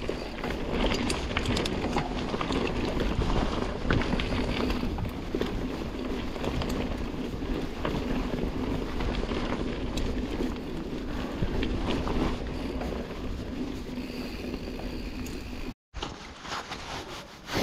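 Mountain bike ridden fast over singletrack, heard from a camera on the bike or rider: wind buffeting the microphone over a rumble of tyres on the trail, with frequent clicks and rattles from the bike over rough ground. The sound cuts out for a moment near the end.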